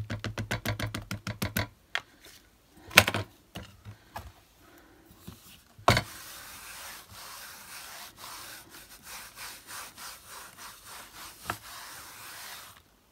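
An ink pad is tapped rapidly against a clear rubber stamp to re-ink it. Then comes a sharp click about three seconds in and a knock about six seconds in, as the stamp is brought down again. After that, several seconds of steady, rhythmic hand rubbing press the stamp onto the card.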